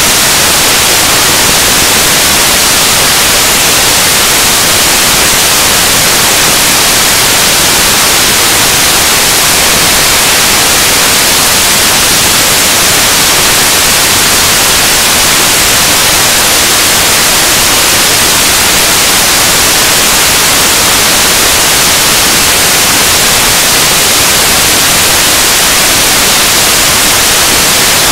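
Loud, steady static hiss like white noise, heaviest in the high range, unchanging throughout with no voice coming through it.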